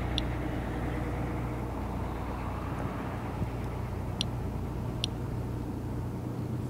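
Inspector+ Geiger counter clicking sparsely for single detected counts at normal background radiation: three short high ticks, one just after the start and two more about four and five seconds in. They sound over a steady low rumble.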